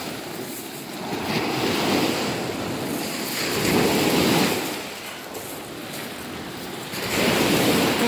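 Sea surf breaking and washing onto a pebble beach, swelling and ebbing in three surges a few seconds apart.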